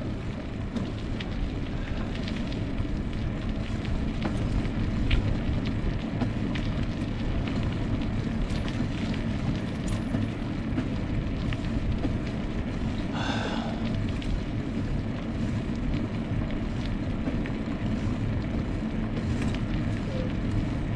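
Wind rumbling on the microphone during a bicycle ride, a steady low rumble with no rhythm. A brief higher-pitched sound cuts in about thirteen seconds in.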